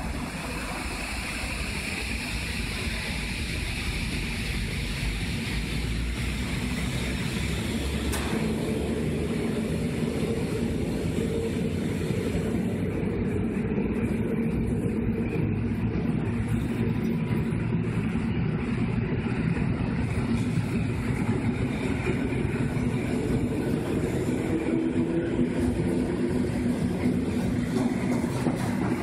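EN57 electric multiple unit pulling out and accelerating, with its traction motors humming and its wheels running on the rails, growing steadily louder. The hum rises slowly in pitch as the train gathers speed, with a single click about eight seconds in.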